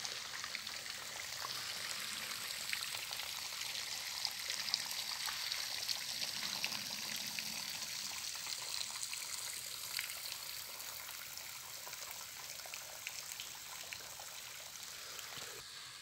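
Steady soft rush and trickle of a small stream running down a nearly dry waterfall with little water in it, easing off slightly near the end.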